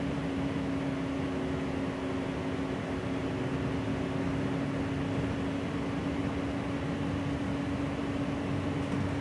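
Steady cabin drone of a Gillig Low Floor city bus under way, heard from inside: engine, ventilation and road noise blended, with one constant mid-pitched hum.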